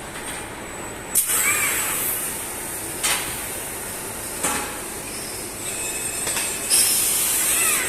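Automated robotic stud-welding station cycling: four sharp clacks, two of them followed by about a second of loud compressed-air hiss, with a short whine that rises and falls after the first and the last.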